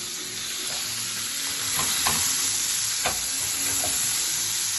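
Whole marinated fish sizzling in hot oil in a frying pan, a steady frying hiss. A few light knocks and scrapes sound in the pan as the fish is handled, the clearest about two and three seconds in.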